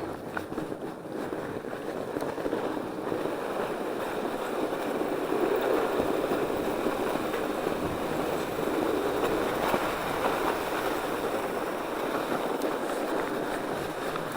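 Fat bike rolling downhill on a packed snow trail: a steady rush of tyre noise on snow and air over the microphone, growing louder over the first few seconds as speed builds, then holding steady.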